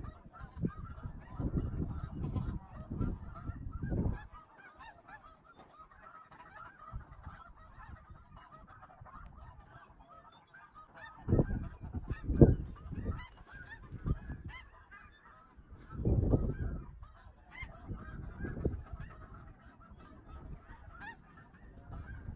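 A steady chorus of many snow geese honking and yelping together, broken by several low rumbles near the start and again about halfway through.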